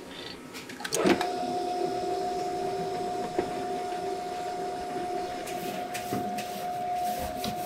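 A commercial stand mixer switches on with a sharp click about a second in, then its motor runs with a steady hum as the hook mixes flour into dough.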